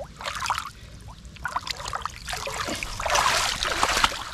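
Water splashing in irregular bursts, loudest in a spell of about a second near the end: a hooked fish thrashing at the surface as it is brought in.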